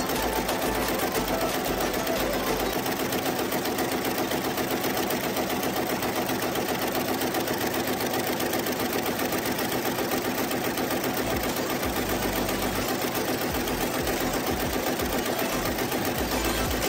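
Lässer MVD.73 Schiffli embroidery machine running, its long row of needles stitching tulle curtain fabric in a rapid, steady mechanical clatter.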